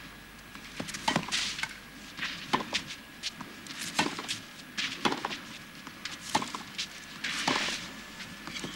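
Tennis ball struck back and forth by rackets in a baseline rally, a sharp pop about every second.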